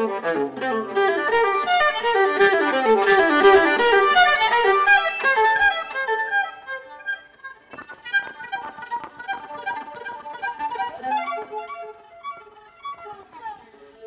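Solo violin playing a fast, busy melody of quick running notes, loud at first, then softer and sparser from about halfway through.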